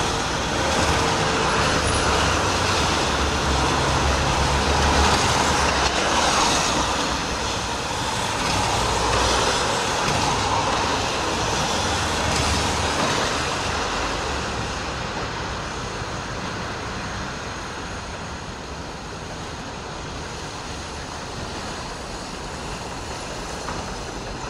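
Street traffic on a rain-wet road: cars driving past with tyre hiss and engine rumble. It is loudest in the first half and eases off about halfway through.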